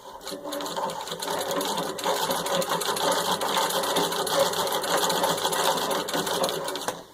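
Wheeler & Wilson No. 9 treadle sewing machine running at speed, a rapid, steady clatter of stitching that starts at once and stops shortly before the end.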